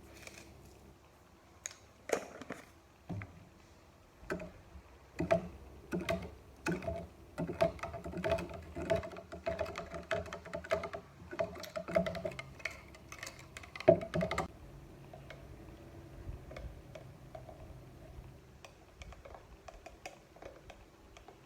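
Dishes and utensils clattering and clinking as they are washed: a quick run of sharp knocks and clinks, some with a short ring, busiest for about twelve seconds, then only a few faint ticks.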